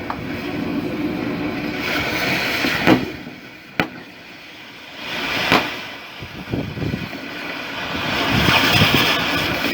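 Metalwork on a pipe over steady machinery noise: a few sharp metallic knocks and clanks, a quieter spell in the middle, then a rising hiss near the end.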